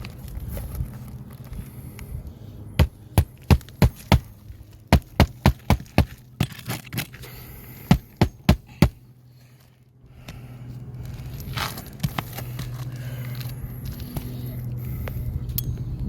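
Knocking on bouncy decking, which the owner suspects has multiple layers under it: about fifteen sharp knocks in quick groups, followed by a steady low hum in the second half.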